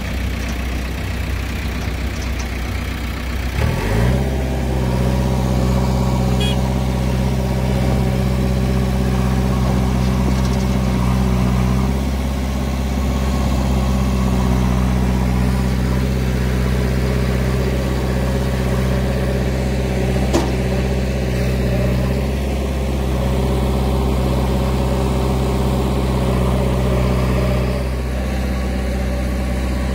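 Diesel engine of a JCB 3DX backhoe loader running under work, revving up about four seconds in and holding there, its pitch dipping and shifting a few times as the digging load changes, with a tractor engine running alongside. A single sharp clank about twenty seconds in.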